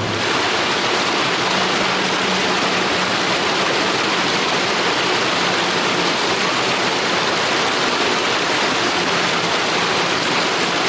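Shallow woodland stream running steadily over rocks and a cobblestone ford, a constant rush of water.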